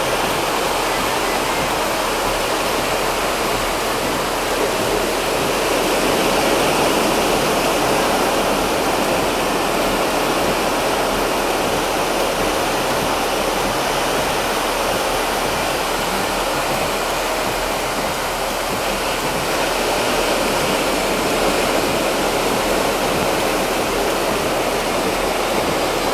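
Ocean surf breaking and rushing over a rocky cobble shore: a steady roar of whitewater that swells a little now and then.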